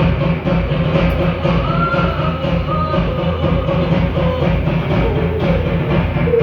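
Loud show music with a driving drum beat and plucked strings.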